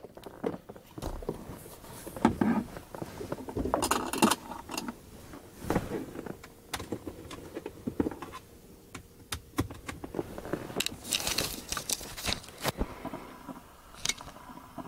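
Handling noise: irregular clicks, light rattles and rustling as small hard objects and cables are moved about and set down, with no regular rhythm.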